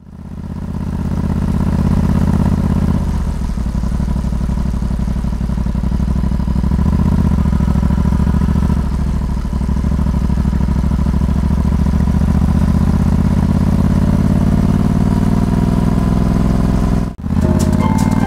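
Yamaha XSR700's parallel-twin engine running at low, steady revs, heard from the rider's seat. About 17 seconds in the sound cuts out for a moment, then returns with the revs starting to climb.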